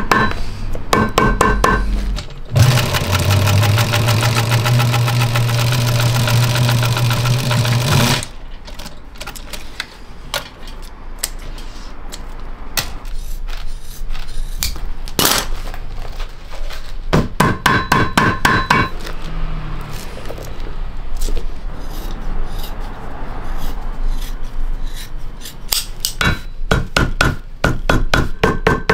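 Quick runs of hammer taps on leather over a block, each stroke sharp with a slight ring, in three bursts: at the start, in the middle and near the end. Early on, an electric machine runs steadily with a low hum for about five seconds, and scattered clicks and snips of shears cutting leather fall between the bursts.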